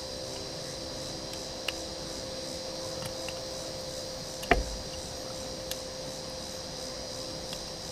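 Light clicks and knocks of taillight bulb sockets being handled and fitted into a taillight housing, with one sharper click about halfway through. A steady background hum runs under them.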